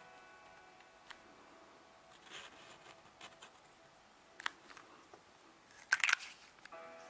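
Fountain pen nib scratching briefly on notebook paper in a few short strokes. Then sharp clicks about six seconds in as the cap of the Pilot 78G is pushed onto the pen.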